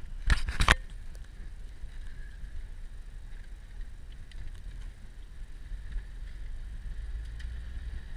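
A 4x4's engine and drivetrain rumbling steadily, heard from inside the cab while it drives over sand, with a short clatter of loud knocks about half a second in.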